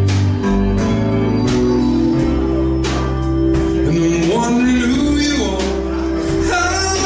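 Live music: a man singing with a strummed acoustic guitar, over long held low notes.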